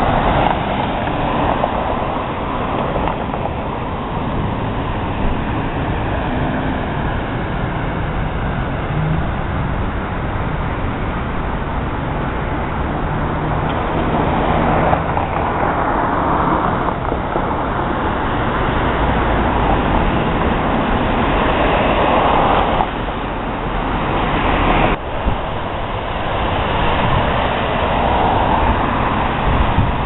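MAX light rail train running, a steady rumble of wheels on rail with a low motor hum that shifts in pitch. The sound changes abruptly twice in the last third.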